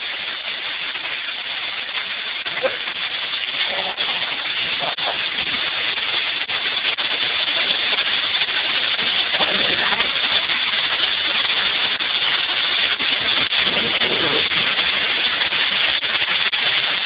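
Hailstorm: a dense, steady hiss of small hailstones and rain pelting hard surfaces, with scattered ticks of single stones, growing a little louder over the stretch.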